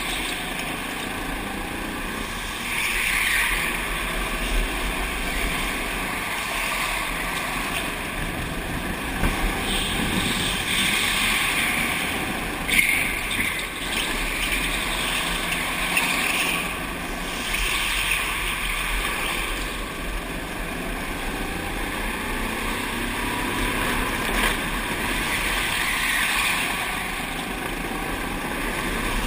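Go-kart engine running at speed, rising and falling every few seconds through the lap, heard from a helmet-mounted camera with wind noise over it.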